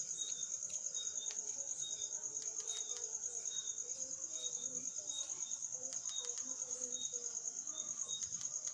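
Cricket singing a continuous, high, rapidly pulsed trill, with a shorter, lower chirp repeating about once a second.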